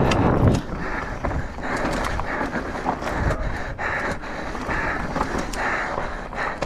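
Commencal Meta mountain bike running fast down a dirt trail, recorded on a GoPro: wind buffeting the microphone, tyres crunching over dirt with scattered knocks and rattles from the bike. Over it, the rider's hard panting breaths come about once a second.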